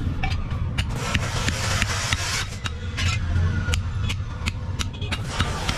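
Hand hammer striking flat steel strips on a steel block, irregular metallic blows two to three a second, over a steady low hum.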